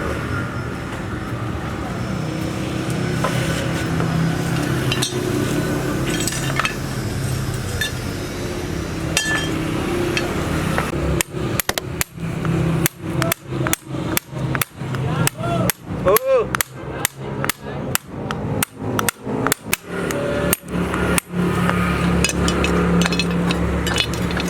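Hammer striking metal in a workshop, a run of sharp blows at roughly two a second for about ten seconds, some leaving a short metallic ring, over a steady background hum.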